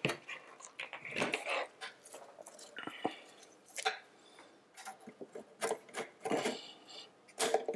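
Gloved hands handling an Antminer board controller and its aluminium frame: irregular small clicks, taps and rubbing of metal and plastic parts.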